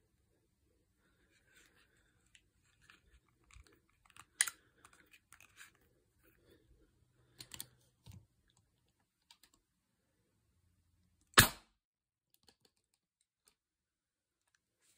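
Webley Tempest .177 spring-piston air pistol: scattered small clicks of handling and loading, with a sharper click about four seconds in, then a single sharp shot about eleven seconds in, by far the loudest sound.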